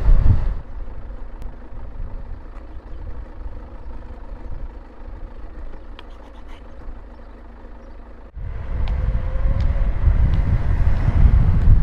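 A quiet stretch with a few faint clicks, then about eight seconds in a sudden return of strong wind rushing over the microphone, with the low rumble of wheels on asphalt at downhill speed.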